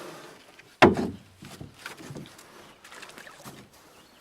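A small rowboat on the water: one sharp, loud knock about a second in, like an oar or a foot striking the hull, followed by quieter scattered knocks and water sounds.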